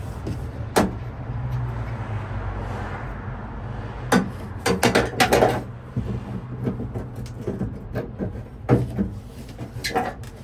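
Scattered sharp clicks and knocks of tools and metal parts as a Ford F-150 ignition lock cylinder is worked out of the steering column, with a short flurry about four seconds in, over a steady low hum.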